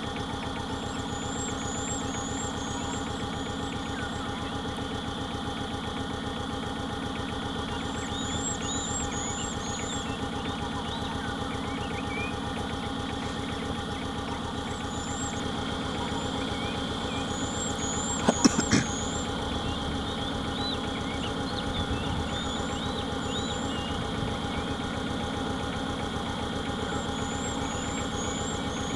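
Vehicle engine idling steadily. Birds call over it now and then in quick runs of short high chirps, and three sharp knocks come close together about two-thirds of the way through.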